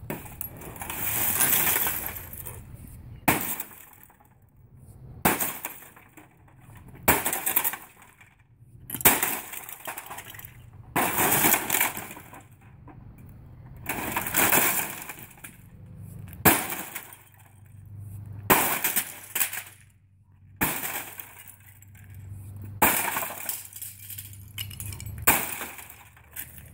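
An Epson WorkForce 7620 inkjet printer being smashed apart with a long-handled hammer: about a dozen heavy blows roughly two seconds apart, each with plastic and glass cracking and breaking and loose parts clattering onto concrete.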